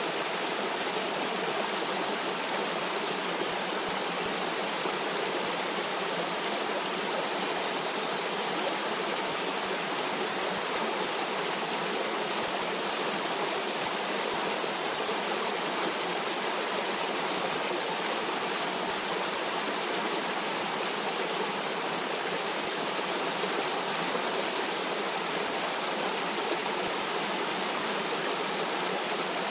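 Stream water running steadily: an even rushing hiss with little deep rumble, unchanging throughout.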